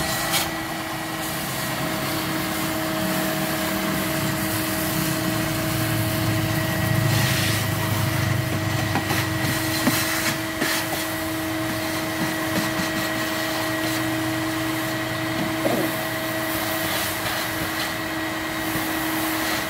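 Vacuum cleaner running steadily with a constant whine while its nozzle is worked over a van's carpeted cargo floor.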